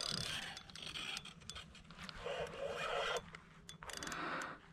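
Faint, irregular scraping and clicking from a spinning reel and rod being worked against a hooked redfish.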